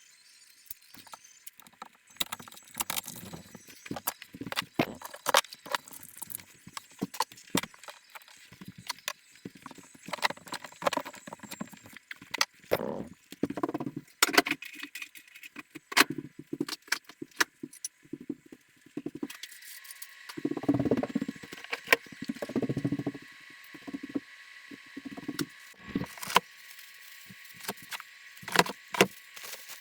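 Irregular clicks, clinks and knocks of hard objects being handled and set down, with a busier stretch of dull thumps about two-thirds of the way through.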